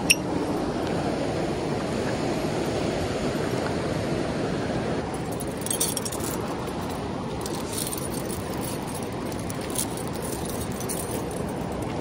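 A steady rush of flowing river water, with a sharp knock right at the start. From about halfway through, the links of a metal chain fish stringer clink and jangle as it is handled.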